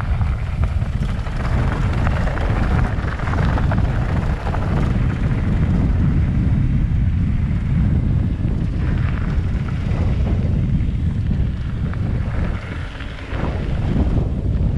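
Wind buffeting the action camera's microphone, over the rumble and rattle of a downhill mountain bike rolling over a dirt trail. Loud and steady throughout.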